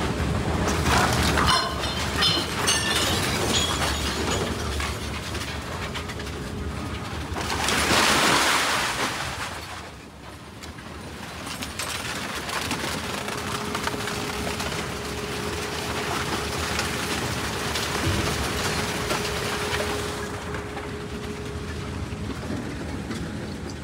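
Industrial scrap-metal shredder running, grinding and clanking through mixed scrap metal. A louder rush of noise comes about eight seconds in and dies away briefly before the steady grinding resumes.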